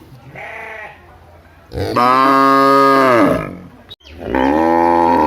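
A cow mooing: a short, quiet call, then two long, loud moos, the first falling in pitch as it ends.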